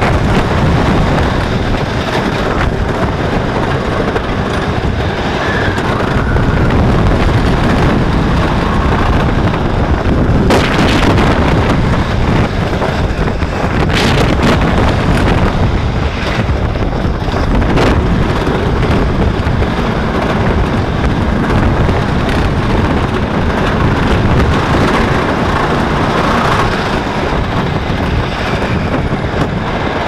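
GhostRider wooden roller coaster train running at speed: a loud continuous rumble and rattle of the train on its wooden track, with heavy wind on the microphone and a few sharp knocks as the cars jolt along the track.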